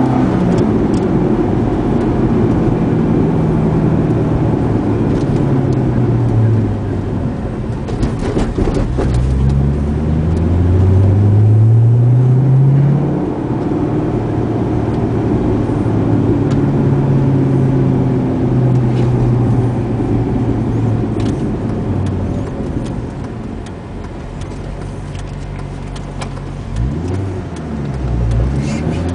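C6 Corvette's V8 running through an ARK DT-S cat-back true-dual exhaust, its pitch climbing and falling as the revs go up and down, with a strong rise about a third of the way in and a dip and fresh rise near the end. This is the low exhaust drone across the rev range.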